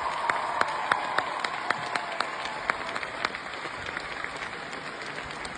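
Applause dying down, with sharp individual claps standing out over a steady patter and thinning out over the first few seconds.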